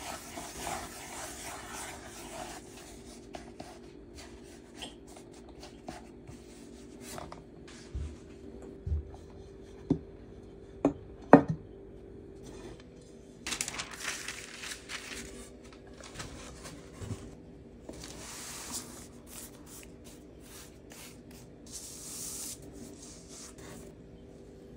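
Hands working soft bread dough on a wooden board: soft rubbing and pressing, several sharp knocks a little before halfway, and bursts of rustling later on, over a steady low hum.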